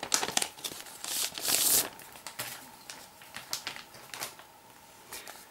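Clear plastic protective film crinkling and rustling as it is handled and peeled on a tablet keyboard dock. The crinkling is densest and loudest over the first two seconds, then thins to fainter, scattered rustles.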